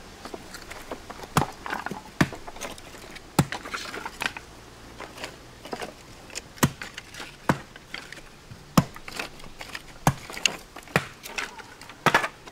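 Split firewood clattering as pieces are pulled from a stacked woodpile and gathered into an armful: a dozen or so irregular sharp wooden knocks, with a quick double knock near the end.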